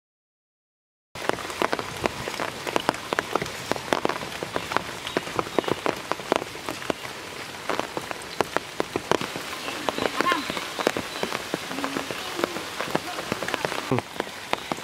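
Heavy rain falling on shallow floodwater and wet ground, a dense, even patter of drops. It cuts in after about a second of silence.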